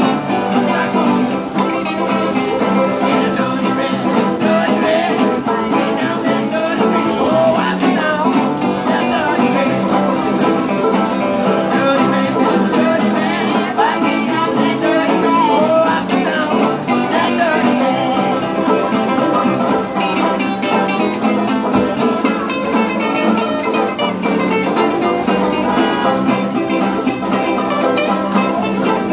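Acoustic string band playing together: open-back banjo, a small banjo, resonator guitar and acoustic guitar picked and strummed in one continuous tune.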